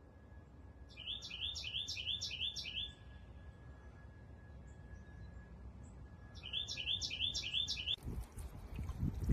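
A songbird singing two phrases of quickly repeated chirping notes, about three a second, the first about a second in and the second near the end.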